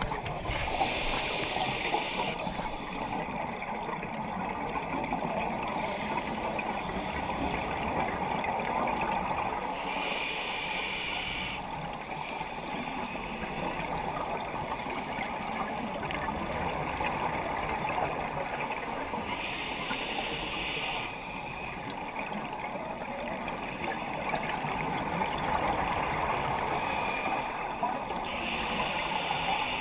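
Scuba diver breathing through a regulator underwater: exhaled bubbles rush out in bursts of about two seconds, four times, roughly every nine seconds, over steady underwater noise.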